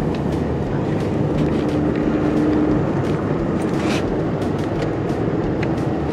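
Car driving on the road, heard from inside the cabin with a rear window open: a steady rush of wind and tyre noise.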